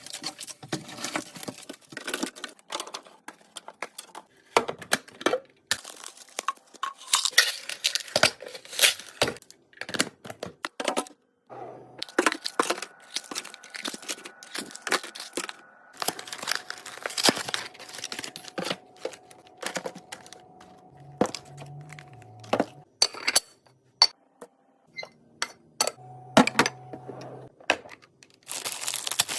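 Snack packaging crinkling and tearing as it is handled, with scattered clicks and taps of items and plastic containers being set down and sorted.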